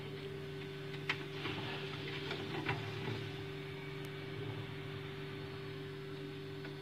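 Steady low electrical hum of a running refrigerator, with a few light clicks and rustles between about one and three seconds in.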